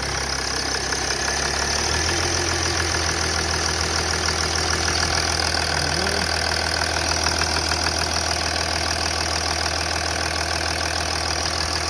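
Mercedes OM642 3.0-litre V6 turbo-diesel idling steadily just after starting, its low note settling about two seconds in. There is no hiss from the repaired turbo inlet port.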